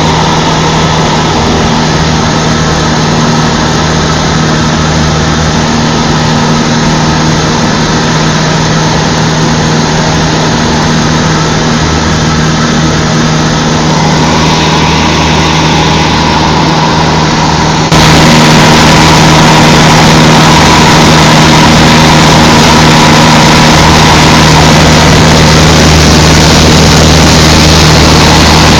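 Cessna 152's four-cylinder Lycoming engine and propeller droning steadily, heard loud inside the cabin. About two-thirds of the way through the drone suddenly jumps louder and brighter, then carries on steady.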